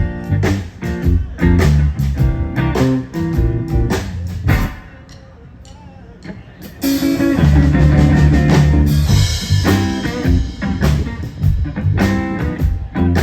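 Live blues-rock band playing, with guitar and a drum kit keeping a steady beat. Around five seconds in the music drops low for about two seconds, then comes back loud with heavy bass and crashing cymbals.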